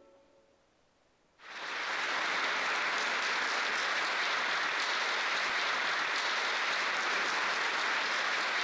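The last note of a flute-and-strings chamber quartet dies away, then audience applause breaks out about a second and a half in and holds steady.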